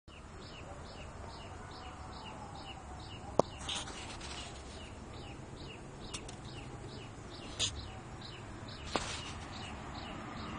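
Bird chirping in a steady series, about two to three short falling chirps a second, over a low steady hum, with a few sharp clicks.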